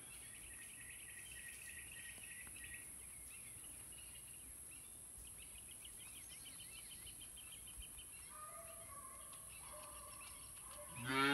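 Faint birdsong, short chirping phrases repeated over a steady high hiss, then near the end a calf lets out a loud moo that is the loudest sound here.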